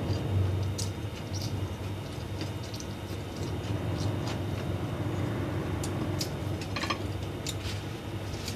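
A person eating fried noodles close to the microphone: chewing and slurping mouth sounds with scattered small clicks, over a steady low hum.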